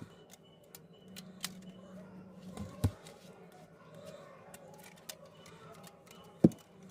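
Light clicks and ticks of small tools and phone parts being handled, with two sharper knocks, one about three seconds in and one near the end, over a faint steady hum.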